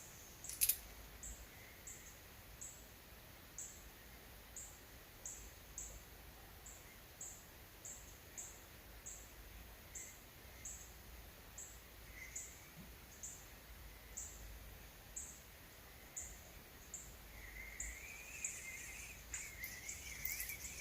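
Quiet evening outdoor ambience: a short, high, thin chirp repeats at a steady pace, about three every two seconds, and a fainter warbling call joins near the end.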